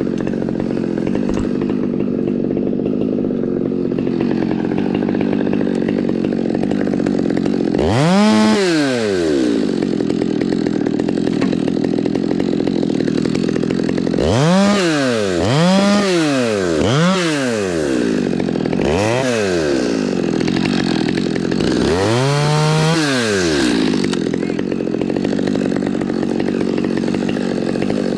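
Chainsaw running steadily, revved up and back down in six short bursts of about a second each, most of them in the second half.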